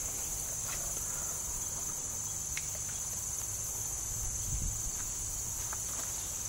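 Steady, high-pitched chorus of insects droning without a break over a faint low rumble.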